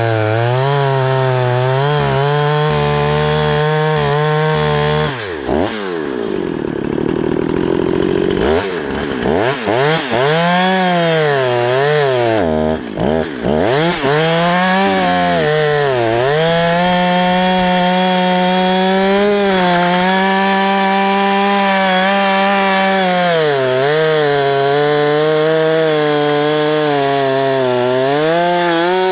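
Husqvarna 365 two-stroke chainsaw, rebuilt with a 372 cylinder kit, running at full throttle and cutting through dry oak. The engine note sags and recovers as the chain bites into the wood, with a deep drop and slow climb back up about five to eight seconds in.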